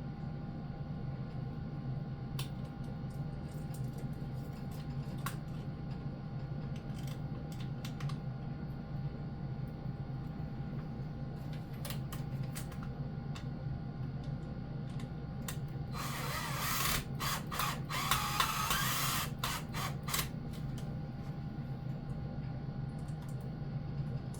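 Scattered light clicks and handling noise from fitting a fire alarm horn strobe and its wiring, over a steady low hum. About two-thirds of the way through comes a dense burst of noise lasting about four seconds, cut by a few clicks.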